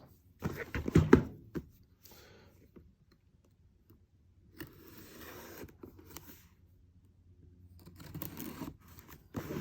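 Cardboard model kit boxes being handled and set down: scrapes and soft knocks, loudest about a second in, then lighter scraping and rustling.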